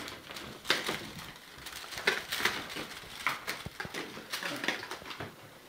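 Scattered light clicks and knocks of toys being handled, a plastic Slinky's coils among them.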